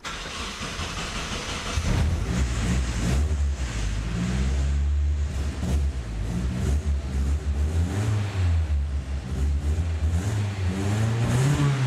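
Turbocharged KA24DET inline-four engine running and being blipped, its pitch rising and falling several times. The running engine still has a little bit of an exhaust leak.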